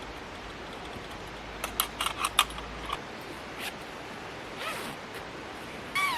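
A quick cluster of small sharp clicks and clinks over a steady background hiss. Near the end comes a single call falling in pitch.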